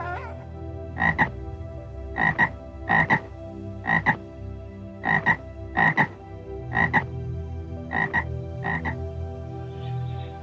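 A frog croaking: about nine short two-part calls, roughly one a second.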